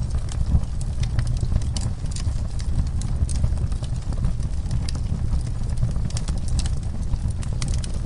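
Log fire burning in a fireplace: a steady low rumble of flames with frequent sharp crackles and pops from the burning wood.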